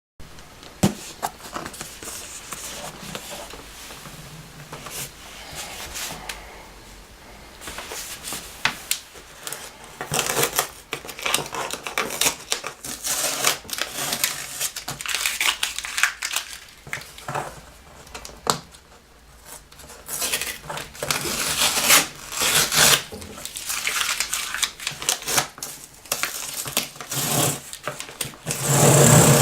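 A boxed mechanical keyboard being unpacked: cardboard and plastic packaging rustling and crinkling, with many sharp knocks and clicks of handling.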